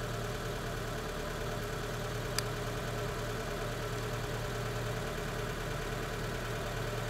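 A vehicle engine idling steadily, with one short click about two and a half seconds in.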